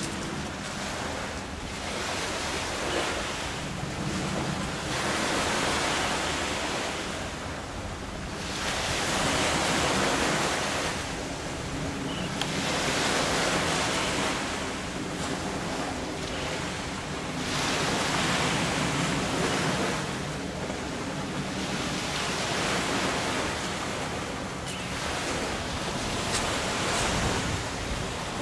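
Sea surf breaking on a beach, a steady wash of noise that swells and falls back every few seconds as each wave comes in.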